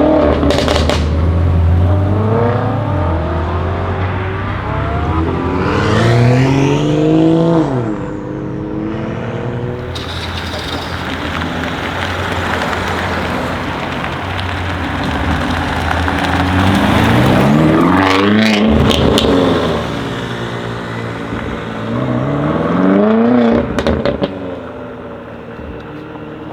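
Twin-turbo V8 of a stage-2 tuned, 750 hp BMW M5 F90 Competition pulling hard up through the revs about four times, each a steeply rising engine note. Sharp exhaust crackles and pops follow the first pull, come around 18 to 19 seconds in, and come again near the end.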